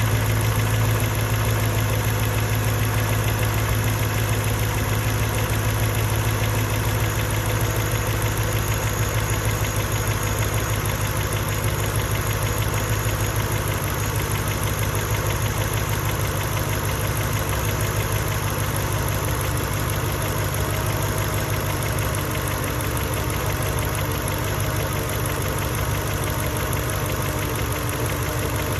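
Mercedes E55's 5.4-litre V8 idling after a cold start, its level easing slightly in the first half. The idle is rough, as if misfiring, which the owner cannot explain: no fault codes are stored and the plugs, coil packs and leads are recent.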